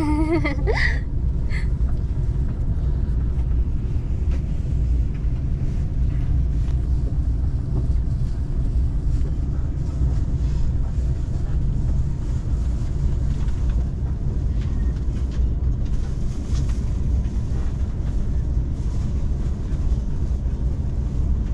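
Steady low rumble and hum inside a commuter train carriage standing at a station platform.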